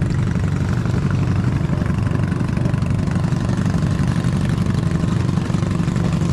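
Engine of a motorized outrigger boat (bangka) running steadily, a low even drone that does not change.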